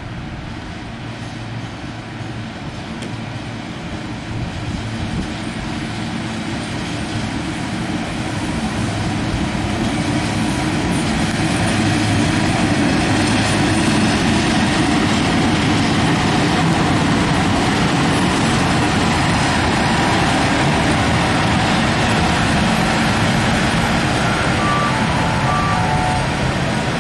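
A pair of MÁV class V43 ('Szili') electric locomotives coupled together, running past with a steady hum and rumble that grows louder over the first ten seconds or so as they approach, then holds. A few short high beeps sound near the end.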